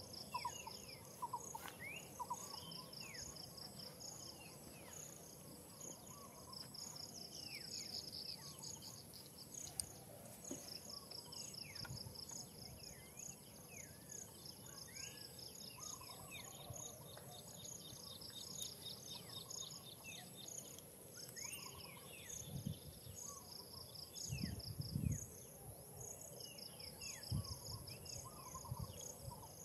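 Forest ambience: insects trilling in rapid pulsed bursts over a steady high drone, with birds giving short falling whistled calls. A few dull low thumps come about three quarters of the way through.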